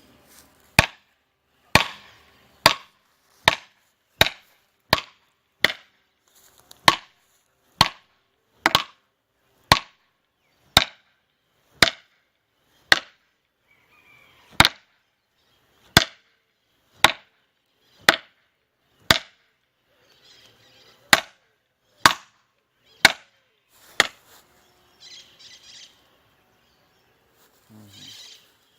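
A polymer tonfa struck hard again and again: about two dozen sharp blows, roughly one a second, stopping about 24 seconds in.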